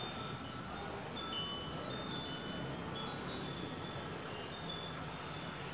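Small hanging metal chimes tinkling, many short high ringing notes starting one after another and overlapping, over a steady background hiss.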